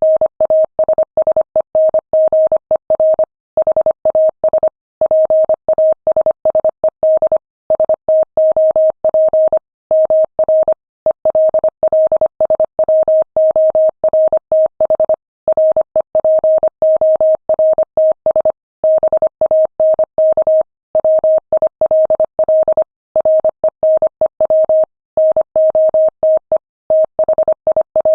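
Morse code sent at 25 words per minute: a single steady mid-pitched tone keyed rapidly on and off in dots and dashes, with short pauses between words.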